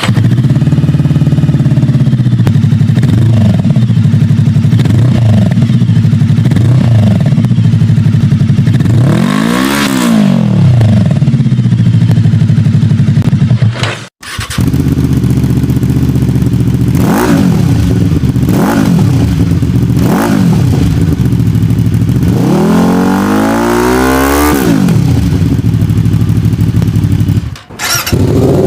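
Motorcycle engines idling, blipped on the throttle and revved, one bike after another. The first idles with a few short blips and one longer rev that rises and falls; it cuts off about halfway through, and a second bike idles with three quick blips and then a longer, higher rev; another cut comes near the end as a third bike starts idling.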